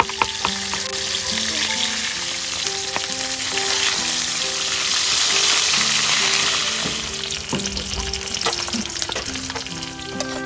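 Whole fish frying in hot oil in a wok: a steady sizzle that grows louder toward the middle and eases off near the end, with scattered pops.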